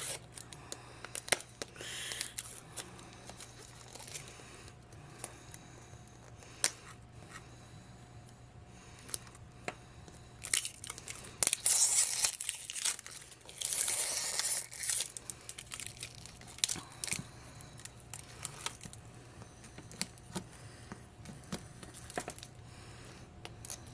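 Plastic tear-strip seal and wrapping being pulled and torn off a hard plastic toy capsule ball, with crinkling and scattered small clicks and taps against the shell. The tearing comes in bursts, the longest and loudest about halfway through, as the stubborn seal is worked loose.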